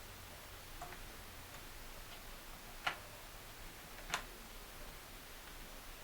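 A few small, sharp clicks from parts being handled: a faint tick about a second in, then two louder clicks about a second and a quarter apart, as a circuit board and its connectors are worked back into a TV.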